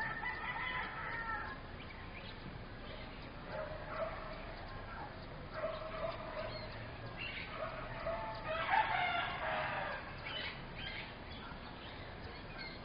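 Birds calling, five calls one after another, each one to two seconds long; the longest and loudest comes about nine seconds in.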